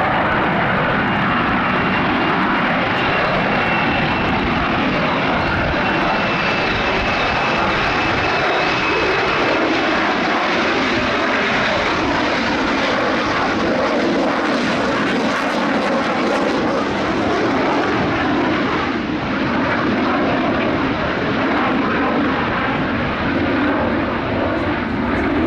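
Military fast jet's engine running loud and steady as it flies a display, with a thin high whine that drifts slightly lower over the first third.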